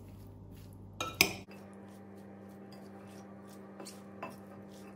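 Metal spoon clinking against a glass bowl while stirring a black-eyed pea salad: two sharp clinks about a second in, then two faint taps near the end, over a low steady hum.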